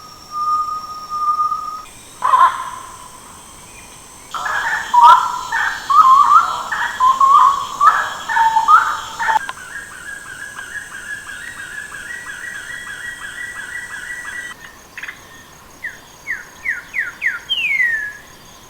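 Bird calls in several abruptly spliced segments: varied chirping notes, then a long run of rapid repeated notes, then a series of quick downward-swept whistles near the end.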